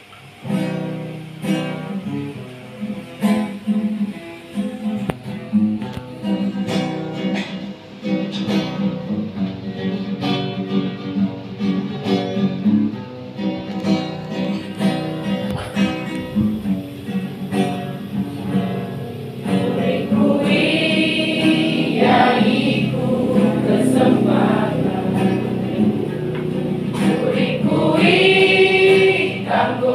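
A young church choir singing a hymn in unison over a plucked-string accompaniment; the singing gets louder about two-thirds of the way through.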